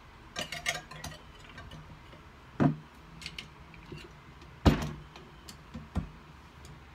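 Light metal clicks followed by three separate sharp clanks as a wire whip attachment is handled and fitted onto a KitchenAid stand mixer's beater shaft. The loudest clank comes a little under five seconds in.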